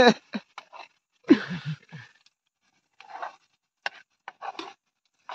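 Steel spoon scraping and stirring chopped onions in a small metal pan, heard as scattered short scrapes and clicks from about three seconds in. A brief voice sound comes just over a second in.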